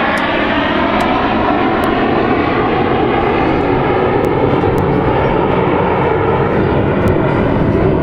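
Military display jet flying past, its engine noise a loud, steady rushing roar with a slow phasing sweep running through it.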